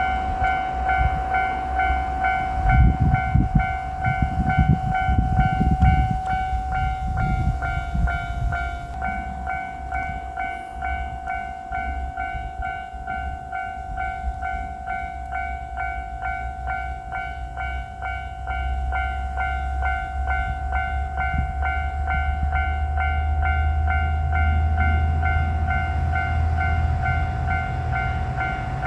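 Japanese level-crossing warning bell ringing in a rapid repeating electronic kan-kan, with a JR Shikoku 1000-series diesel railcar rumbling over the crossing loudest from about 2 to 8 seconds in. A low steady engine drone swells over the last ten seconds.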